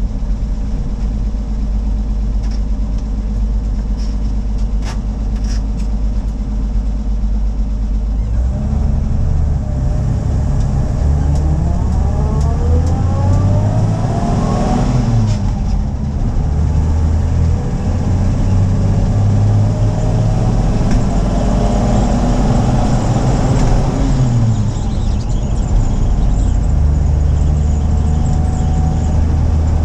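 1970 Toyota FJ40 Land Cruiser's inline-six engine heard from inside the cab: idling steadily, then pulling away about eight seconds in and rising in pitch under load. It falls back at a gear change about halfway, rises again, drops at a second shift, then settles to a steady cruise.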